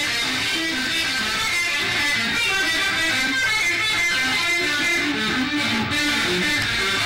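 Electric guitar played solo, a steady stream of quick single notes and strummed chords.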